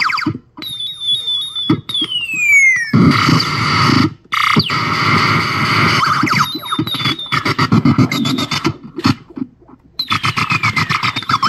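Circuit-bent toy gun's vintage 'Space War' sound chip played through an amplifier and effects: electronic laser zaps with falling pitch sweeps, warbling trills and harsh noisy blasts, broken by short gaps. Near the end it turns into a fast stuttering pulse.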